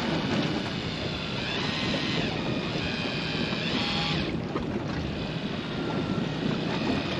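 Wind buffeting the microphone and waves lapping against a drifting boat's hull at sea, with a short high whine that rises, holds and falls, twice near the middle.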